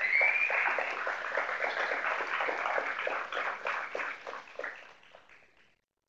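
Audience applauding, a dense patter of many hands that dies away and stops about five and a half seconds in.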